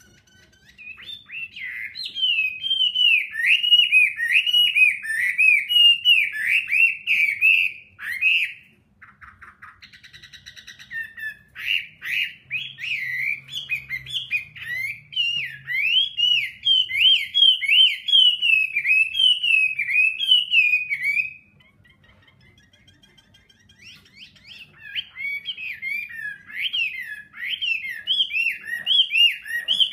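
Chinese hwamei singing long runs of rapid, varied, swooping whistled phrases. The song breaks off about eight seconds in, with a brief buzzy rasp, then resumes. It pauses again for a couple of seconds a little past twenty seconds.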